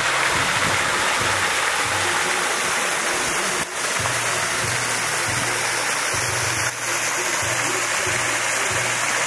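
Water from a pool water feature pouring and splashing steadily into a swimming pool, with a music bass line pulsing underneath.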